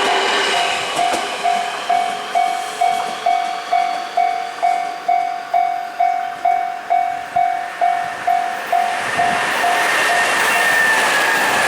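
Japanese level-crossing warning bell ringing about twice a second over the running noise of a Nankai Main Line electric train. The bell stops about ten seconds in while the train noise runs on.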